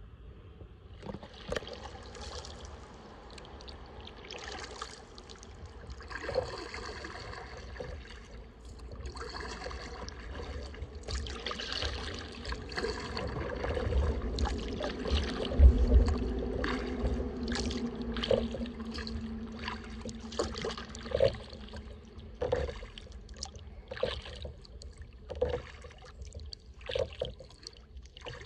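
Kayak paddle strokes: the blades dipping in calm water, with water trickling and dripping off the paddle and short splashes every second or two. A low thump about halfway through is the loudest sound.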